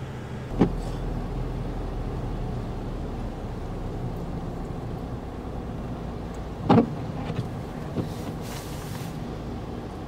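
Steady low rumble of a motor vehicle's engine running, with a short sharp sound about seven seconds in and a fainter one a second later.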